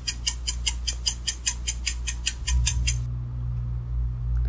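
Rapid, evenly spaced ticking sound effect, about five sharp ticks a second, that stops about three seconds in. A steady low hum runs underneath and grows louder partway through.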